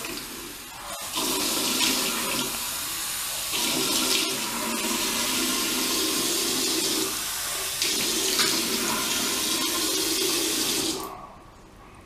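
Water running from a sink tap while the face is wetted with warm water from the hands; the running water stops suddenly near the end.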